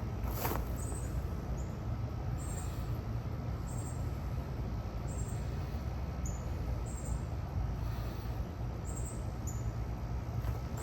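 Outdoor background: a steady low rumble, with a short, high chirp repeating about once a second.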